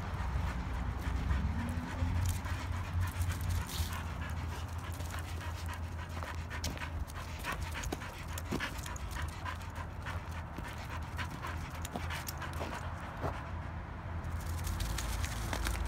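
A dog panting steadily, over a steady low rumble and scattered light clicks.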